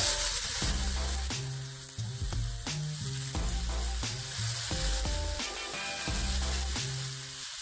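Two porterhouse steaks sizzling steadily as they are laid into a very hot cast-iron skillet and begin to sear, with background music underneath.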